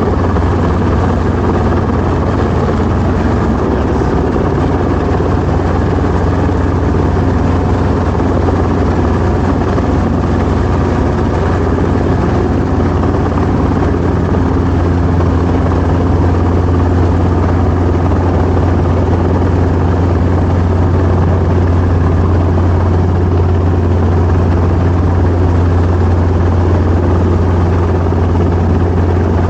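Helicopter engine and rotor running steadily: a loud, even low drone with no change in pitch or level.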